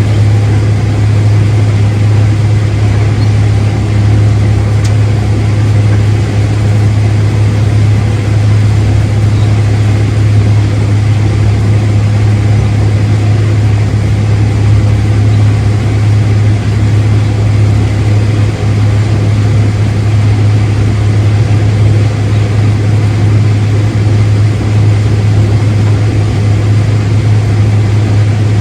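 Farm machinery engine running steadily: a constant low hum that holds the same pitch throughout.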